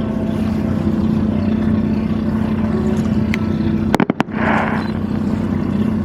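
Motorboat engine running at a steady pitch. About four seconds in, a few sharp clicks and a short hiss break through it.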